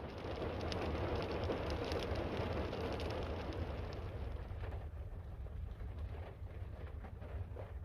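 Heavy rain falling on a surface, with many individual drop hits, easing about five seconds in, over a steady low rumble of wind.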